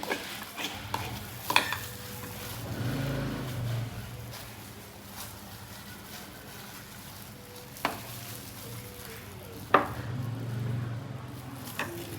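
Battered food frying in hot oil with a steady sizzle, broken by a few sharp clicks of a utensil against the pan.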